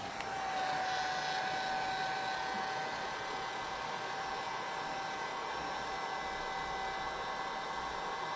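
Handheld electric hot-air blower running steadily, a continuous airy rush with a steady motor whine, heating the tablet's glued-on screen to soften the adhesive.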